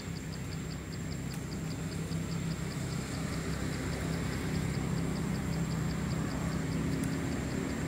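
Steady low hum of a running engine, growing slightly louder, with a high, even pulsing about five times a second and a thin, steady high whine above it.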